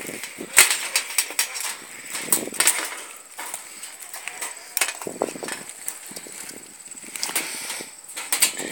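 Wire cage trap being set by hand: irregular metallic clicks, clinks and rattles of the wire mesh, door and trigger parts as they are worked.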